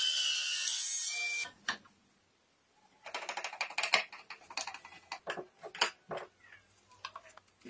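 Small bench saw cutting a thin wooden strip, a steady whine that stops about a second and a half in. After a short pause comes a hand screwdriver driving a wood screw into a panel: a quick, irregular run of clicks and creaks.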